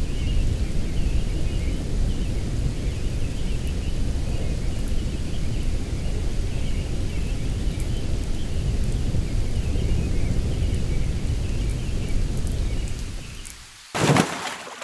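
Flood and storm sound effect: steady heavy rain with rushing water and a deep low rumble. It fades out near the end, then a short, sudden loud noise hits and dies away within a second.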